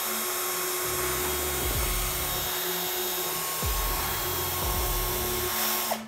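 Cordless power drill running steadily as it backs out the screws of a luggage mounting plate, with a steady whine that cuts off suddenly near the end.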